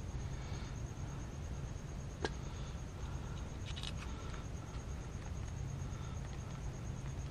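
Small handling noises from a brake job, with one sharp click about two seconds in and faint rustling near the middle, over a steady low hum.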